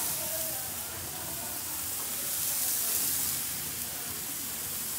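Marinated ribeye kabobs sizzling on a hot gas grill: a steady hiss that swells and eases.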